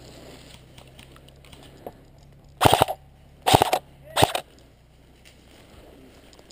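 Three short bursts of full-auto airsoft rifle fire, each a quick string of sharp cracks, about a second apart near the middle.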